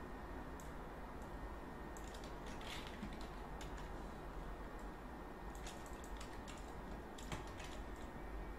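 Scattered computer keyboard keystrokes and mouse clicks, a few at a time with pauses between, over a steady low hum.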